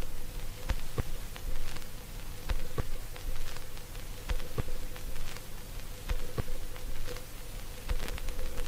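Vinyl record surface noise under the stylus: a steady crackle of small clicks and pops, with a few louder clicks recurring roughly every two seconds over a faint low hum and rumble. No music is playing from the groove.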